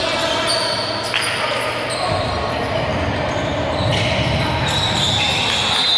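Basketball bouncing on a gym floor during a game, amid the steady chatter of many voices in a large hall.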